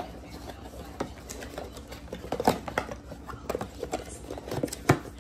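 Things being handled and packed up on a tabletop: irregular light knocks, clicks and rustles, with a sharper knock near the end.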